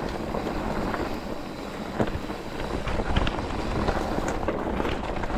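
Wind rushing over the microphone while a mountain bike rolls fast down a rocky, loose trail, tyres crunching over stones, with a few sharp knocks and rattles from the bike over the rocks.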